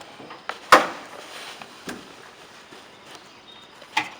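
A sharp knock about a second in, followed by two softer knocks later, over faint background hiss.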